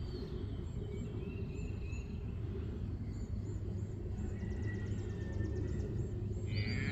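Steady low outdoor rumble with faint bird chirps; near the end a cow starts a long moo, the mother calling as she comes over to her newborn calf.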